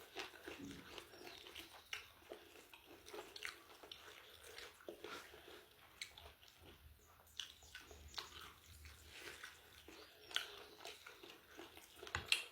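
Close-up eating: biting and chewing crispy fried chicken chicharrón with small irregular crunches and mouth clicks.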